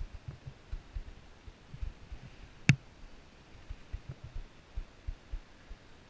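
Irregular muffled low thumps, a few a second, with one sharp click a little before the middle: bumps and knocks picked up by the camera as a skier is towed up a button drag lift over snow.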